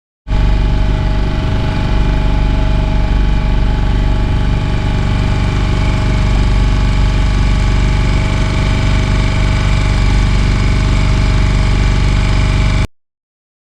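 Boat engine running at a steady speed, a constant drone with a strong low rumble. It starts abruptly just after the start and cuts off abruptly near the end.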